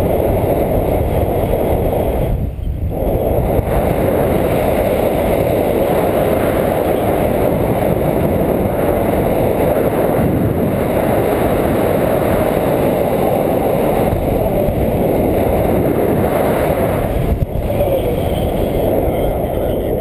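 Wind rushing over an action camera's microphone in flight on a tandem paraglider: a steady, heavy buffeting rumble that eases briefly twice, about two and a half seconds in and near the end.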